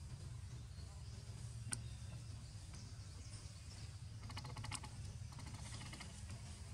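Outdoor ambience: a faint steady low rumble, with a single sharp click about two seconds in and a quick rattle of clicks a little after four seconds.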